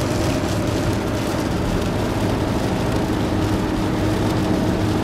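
Steady road noise of a Nissan Murano driving at highway speed on a rain-soaked road, heard inside the cabin: an even rush of tyres on wet pavement with a faint steady hum underneath.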